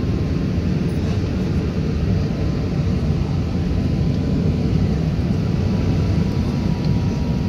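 Steady low rumble of an Airbus A380-800 passenger cabin in flight: engine and airflow noise heard from inside the cabin, with a faint steady whine above it.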